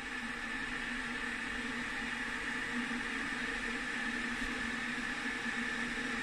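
Aigostar Queen 2200 W stainless-steel electric kettle heating cold water toward the boil: a steady hiss that grows slightly louder.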